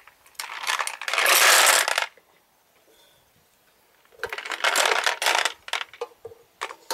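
Ceramic milling balls sliding and rattling inside a plastic ball-mill tank as it is lifted and tipped, in two rushes of about a second and a half each. A few knocks follow near the end as the tank is set onto the mill's rollers.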